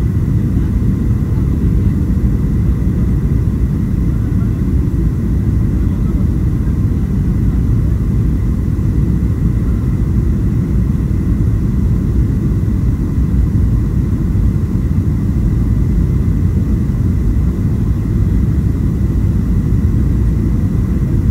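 Steady low rumble of engine and airflow noise inside the cabin of a Boeing 737-800 with CFM56-7B engines, heard from a window seat over the wing during the approach with flaps extended. A faint steady high tone runs above the rumble.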